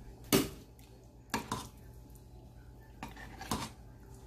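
A utensil clinking and knocking against a stainless steel saucepan as shredded chicken is added back into rice porridge and stirred in. There is a sharp knock about a third of a second in, two more about a second and a half in, and a few lighter ones near the end.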